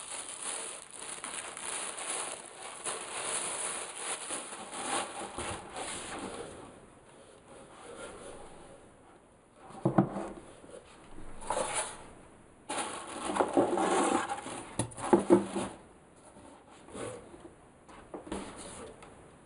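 Packaging rustling and rubbing as studio speakers are unpacked from their cardboard box. A sharp knock comes about ten seconds in as an M-Audio AV40 speaker cabinet is set down on the table, followed by more bursts of rustling and a few knocks.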